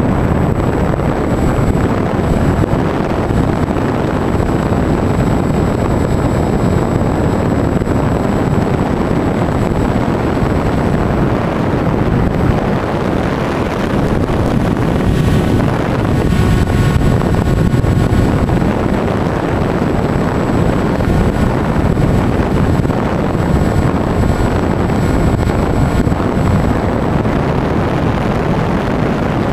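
Wind rushing over the onboard camera's microphone on a Bixler 2 electric RC plane in flight, with the drone of its brushless pusher motor and propeller underneath. A thin high whine runs steadily, dropping out for a few seconds near the middle.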